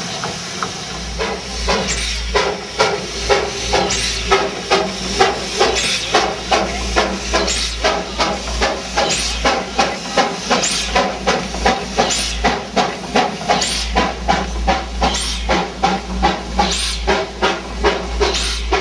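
Darjeeling Himalayan Railway B Class 0-4-0 saddle tank steam locomotive pulling away with its train. Steam hisses at first, then from about a second in its exhaust chuffs settle into a regular beat of about two a second.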